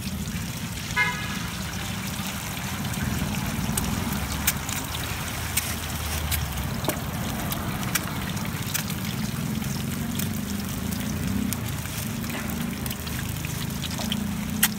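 Steady low, engine-like rumble with scattered sharp clicks, and a short horn-like toot about a second in.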